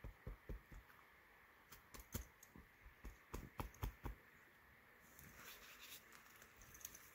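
Hands patting and pressing loose soil on a small mound: soft, irregular taps, several in quick succession about three to four seconds in, then a faint rustle of dirt near the end.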